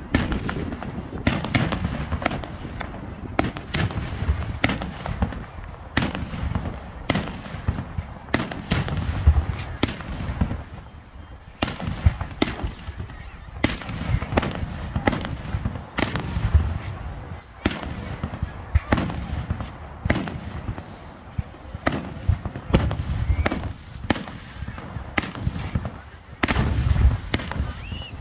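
Aerial fireworks display: shells bursting in quick succession, sharp bangs more than one a second at times, over a low rolling rumble of booms.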